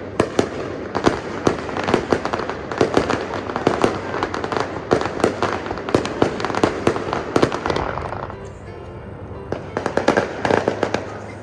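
Aerial fireworks bursting in quick succession, a rapid string of sharp bangs and crackles. About eight seconds in the bangs die down for a moment, then a fresh cluster of reports goes off near the end.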